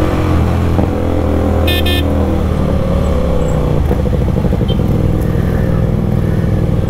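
Motorcycle engines running at low speed in slow town traffic, with a brief vehicle horn honk about two seconds in.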